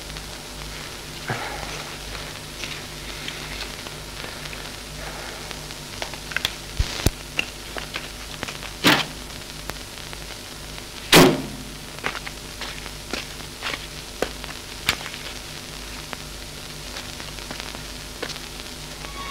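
Hiss and steady hum of an old film soundtrack, with scattered clicks and two louder knocks, the louder one about eleven seconds in.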